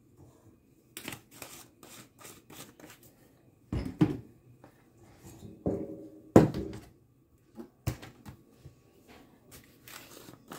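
Irregular clicks, rattles and knocks of kitchen handling as a stainless steel mixing bowl of flour is moved and set down on a stone counter. There are a few louder thuds around four and six seconds in, one with a short metallic ring.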